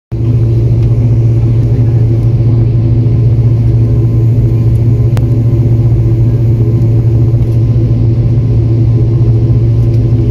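Steady cabin drone of an airliner taxiing: jet engines and cabin air making a strong low hum that holds level throughout.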